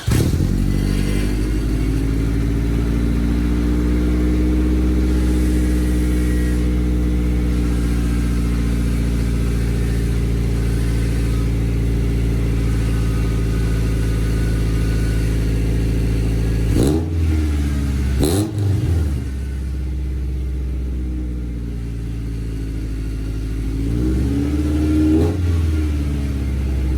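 A 1996 Acura Integra's four-cylinder engine idles steadily through a freshly fitted straight-pipe exhaust. It is blipped twice about two-thirds of the way through, then settles to a quieter idle and is revved briefly again near the end.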